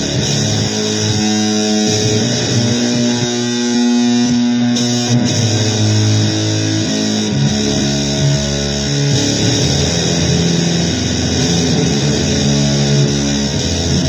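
Guitar playing blues, with sustained notes changing about every second over a steady low drone and a constant high hiss.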